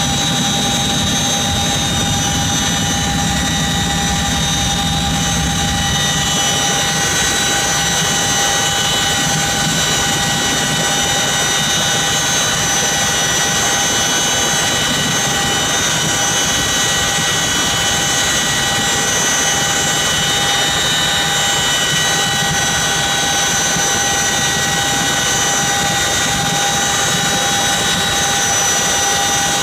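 CH-47 Chinook tandem-rotor helicopter, its twin T55 turboshaft engines and rotors running, heard from inside the cabin with the rear ramp open: a loud, steady whine made of several high tones over a low rumble that eases about six seconds in.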